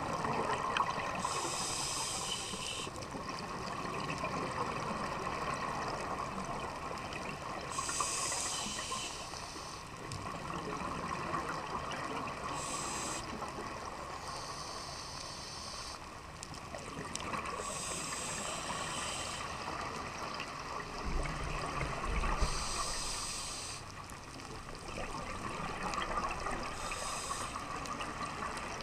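Scuba divers breathing through their regulators underwater: exhaled bubbles hiss and bubble in bursts every four to five seconds over a steady underwater hiss.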